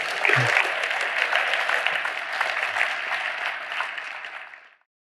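Audience applauding, many hands clapping together, which cuts off near the end.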